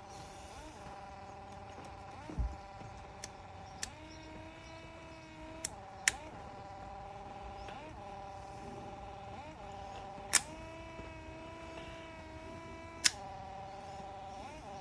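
1965 Volvo 122S electric wiper motor and linkage running on the bench with a steady whine that swells briefly about every one and a half seconds as the arms sweep. Several sharp clicks from the wiper switch being worked, and twice after a click the motor's whine changes tone for a couple of seconds.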